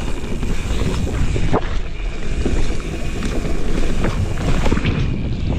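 Mountain bike riding fast down a dirt trail: wind buffeting the microphone over a steady tyre rumble, with frequent short knocks and rattles from the bike on the rough ground.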